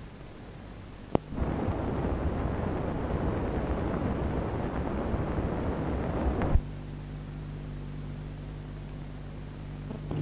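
Explosion sound effect: a sharp crack about a second in, then about five seconds of loud rushing noise that stops suddenly with a thump. A low steady hum follows.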